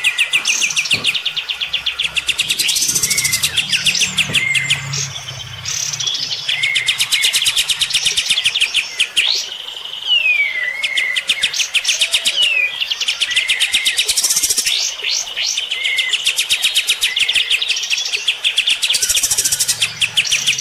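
Caged kapas tembak bulbuls singing loudly against each other, an almost unbroken run of very fast rattling trills mixed with short downward-slurred whistled notes.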